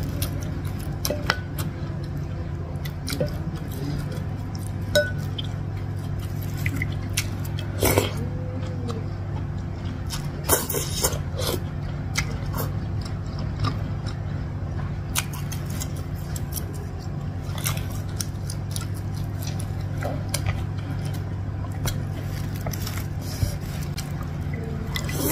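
Close-up eating sounds: a wooden spoon and fork clicking and scraping against a ceramic bowl of meatball soup, a noodle slurp about ten seconds in, and chewing, as scattered short clicks over a steady low hum.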